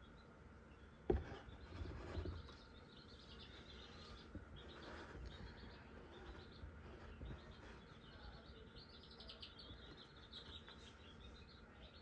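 Quiet handling of an egg onto a candling light, with a sharp knock about a second in, over faint, rapid, high-pitched chirping that runs on through the rest.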